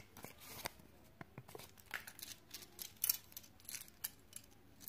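Close-up handling of a small paper instruction leaflet from a Kinder Joy toy, crinkling irregularly in the fingers, with light clicks of small plastic toy parts being picked up.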